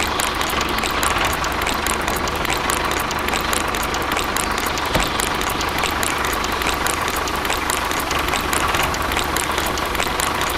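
Small motor of a model mini tractor running steadily, with a steady whine and fast regular ticking.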